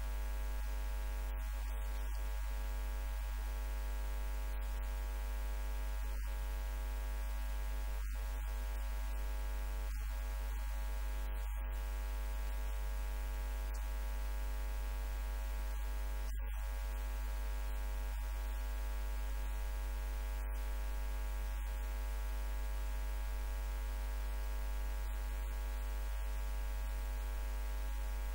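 Steady electrical mains hum: a loud low drone with a buzzy stack of overtones that holds unchanged, with no speech heard.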